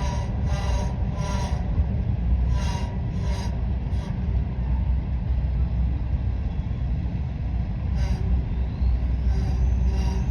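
Norfolk Southern grain train's freight cars rolling past with a steady heavy rumble, and short repeated ringing wheel-on-rail sounds that come in a run about every 0.7 s for the first four seconds, then return near the end.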